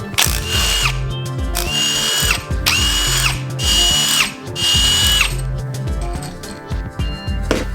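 Handheld power tool spinning in five short bursts of under a second each, a steady whine that rises quickly at each start, as fasteners are run out during engine disassembly. Background music with a steady bass line underneath.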